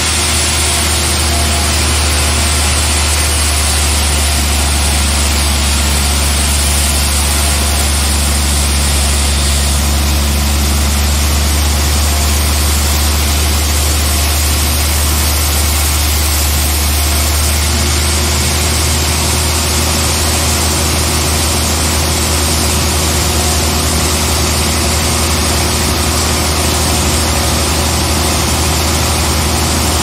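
Large band sawmill running with a steady, loud, low drone while a big slab of suar wood is fed through its blade.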